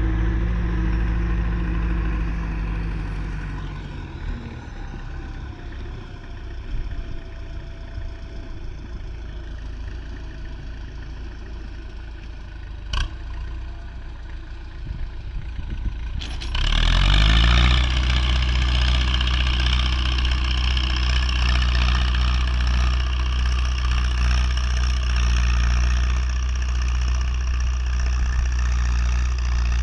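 MTZ tractor's diesel engine running and fading somewhat as it pulls away with a Heger deep-ploughing plough. There is a single click about 13 seconds in. About 16 seconds in the engine revs up and then runs loud and steady under ploughing load.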